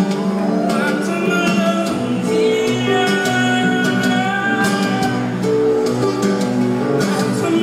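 Live band music heard from the audience in a concert hall: acoustic guitar leading, with held notes of a sung melody over it.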